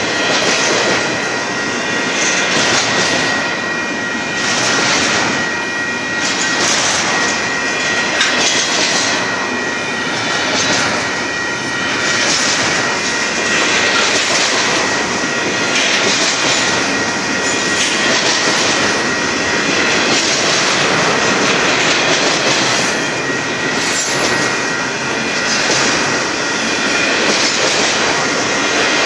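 Double-stack container train's well cars rolling past at close range: a steady loud rumble and rattle of steel wheels on rail, with a thin steady wheel squeal and hissy surges about every two seconds as each car goes by.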